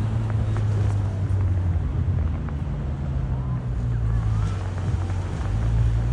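Steady low engine rumble of a moving vehicle, with some wind noise.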